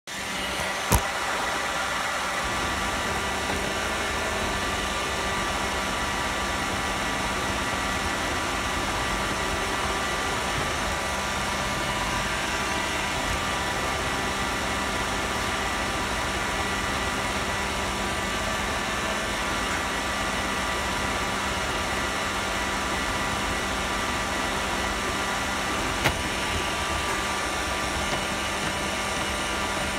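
Roomba robot vacuum running, heard from a phone riding on top of it: a steady whir of its vacuum fan and brushes with a few whining tones over it. A sharp click comes about a second in and another late on.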